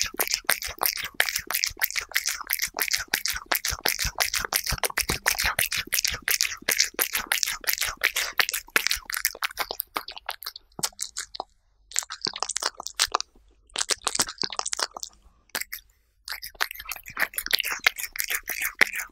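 Cat licking and chewing a soft chicken-breast puree patty right at a microphone: rapid smacking and lapping clicks. The clicks stop for a few short pauses a little past halfway, then start again.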